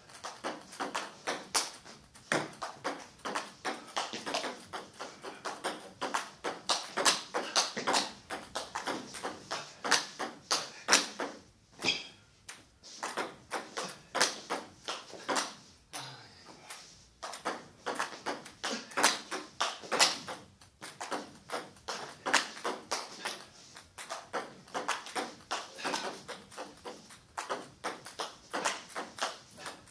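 Table tennis ball being struck back and forth with bats and bouncing on the table in a fast practice rally: a quick, steady run of sharp clicks, with short breaks about twelve and sixteen seconds in.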